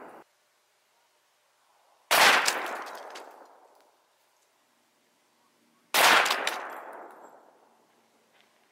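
Two .44 Magnum handgun shots, about four seconds apart. Each is a sharp crack followed by an echo that dies away over about a second and a half.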